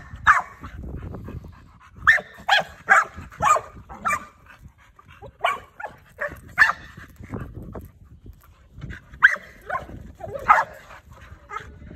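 Bulldogs barking, a dozen or so sharp barks in irregular clusters with short pauses between.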